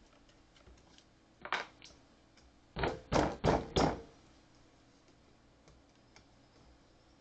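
Plastic coffee creamer bottle being opened by hand: a sharp click about a second and a half in, then a quick run of four louder rasping strokes about a second later as the cap and seal are worked off.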